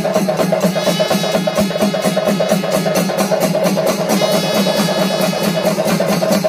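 Kerala temple percussion ensemble of drums and hand cymbals playing rapid, even strokes. High ringing tones come in about a second in, and again past the four-second mark.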